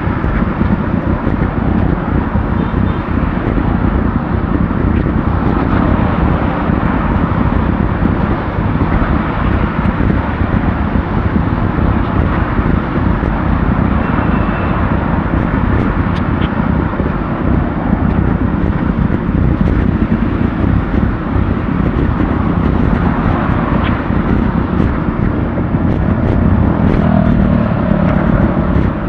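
Steady road and wind noise from a bicycle ride on city streets, picked up by an action camera's microphone, with a rough low rumble of wind buffeting and traffic, and a few faint clicks throughout.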